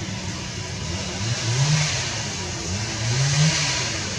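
A motor vehicle's engine accelerating: its pitch climbs, levels off, and then climbs again from lower down, about three times, as if shifting up through the gears. A steady high hiss runs underneath.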